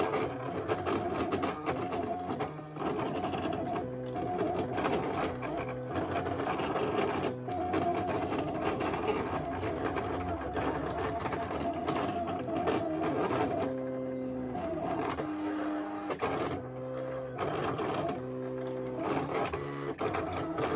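Silhouette cutting machine cutting out a printed transfer: its stepper motors whine and buzz as the blade carriage and mat move, with the whine jumping from pitch to pitch as the cutting path changes direction.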